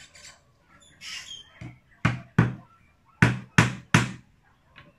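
Hammer driving a nail into a wooden board with sharp, separate blows. A light tap comes first, then two blows about two seconds in, then three more evenly spaced about a third of a second apart.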